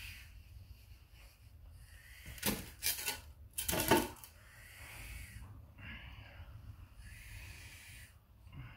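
Young Guyana red-tailed boa constrictor hissing in short breathy puffs, several times, a defensive hiss from a snake stressed by shipping and handling. Between about two and a half and four seconds in, a loud burst of rustling and knocks from the cloth snake bag being handled.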